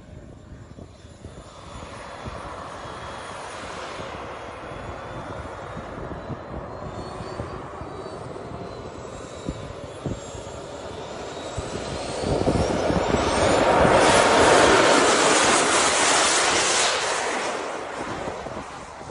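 Radio-controlled model jet's turbine engine whining, its pitch rising, then growing much louder about twelve seconds in and fading away near the end as the jet speeds past on its takeoff run.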